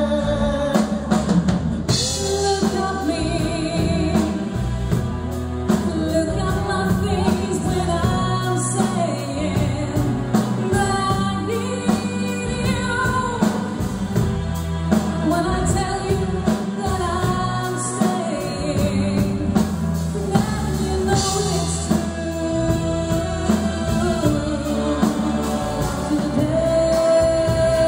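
Live band playing a pop song with singing, a drum kit keeping the beat under the vocals along with bass, guitar and piano.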